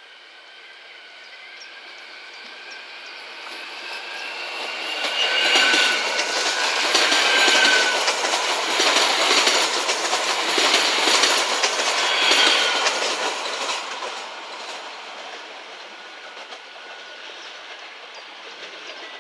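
Regional electric multiple unit running in along the platform past the listener: wheels clatter over the rail joints, growing louder, peaking for several seconds, then fading. Thin high wheel or brake squeals ring through it.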